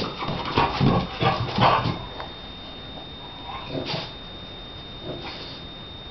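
Shar Pei dog making short vocal noises in play, a quick cluster of loud bursts in the first two seconds and a few fainter ones later.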